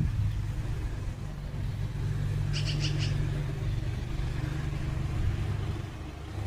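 Lawn mower engine running with a steady low drone, and about two and a half seconds in a black-billed magpie gives a short, rapid chatter of about five notes.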